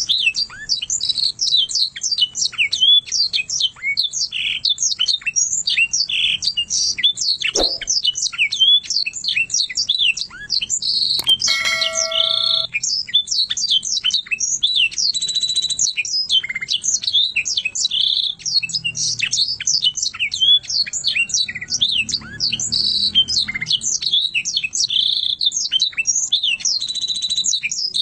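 Domestic canary singing a long, unbroken song of rapid chirps, quick falling whistles and trills. About eleven seconds in, a short, steady, buzzy multi-tone sound cuts in for a second or so.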